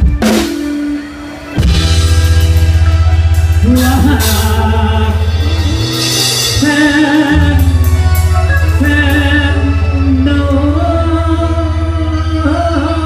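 Live mor lam band with a drum kit: a drum fill at the start, a short drop in level, then the band comes in with a heavy steady bass and a vocalist singing a lam melody over it. The bass drops out briefly about halfway through.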